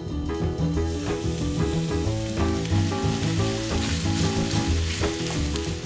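Minced beef frying with onions in a hot pan, a steady sizzle that builds about a second in, with a wooden spoon stirring it. Background music with a bass line plays underneath.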